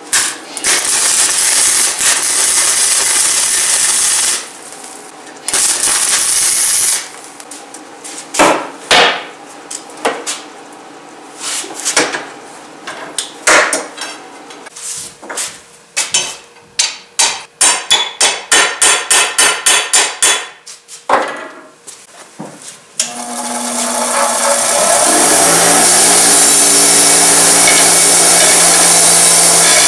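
Electric arc welding on a steel bracket, a sputtering arc in two bursts of about four seconds and a second and a half. It is followed by a hammer striking the steel workpiece in the vice many times, with a quick run of about four blows a second. Near the end a bench grinder runs up to speed and grinds a steel rod steadily.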